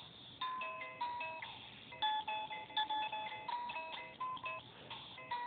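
Circuit-bent alarm clock sound chip playing glitchy electronic beeps: short steady notes jumping between pitches in a jumbled, irregular melody.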